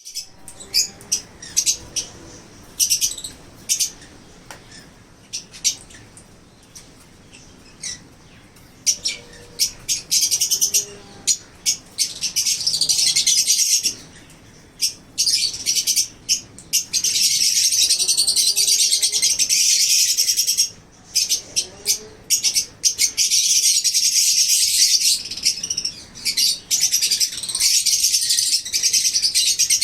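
Pineapple conure, a colour mutation of the green-cheeked conure, calling with short, sharp, high chirps. From about twelve seconds in, these give way to long stretches of rapid, shrill chattering that stop and start several times.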